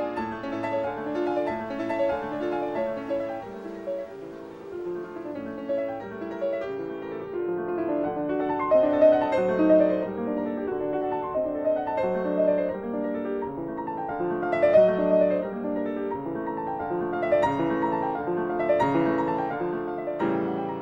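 Background piano music: a continuous melody of quickly changing notes over lower accompanying notes.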